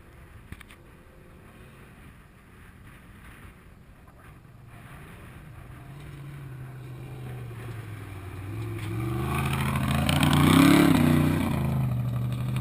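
Off-road race vehicle's engine approaching at speed, growing steadily louder over several seconds. It is loudest about ten and a half seconds in as it passes close by, its pitch dropping slightly as it goes past.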